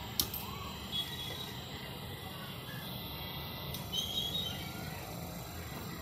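Hydraulic bar cutter shearing a steel rebar with a sharp crack about a fifth of a second in, over the steady low hum of its electric-motor hydraulic power pack. A lighter click follows near four seconds, with a few high chirps.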